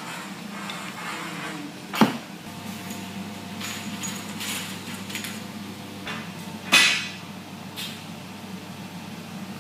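Aluminium door rail being fitted onto the edge of an MDF sliding wardrobe door panel: two sharp knocks, about two seconds in and near the seven-second mark, with lighter taps and clicks of metal on board between them.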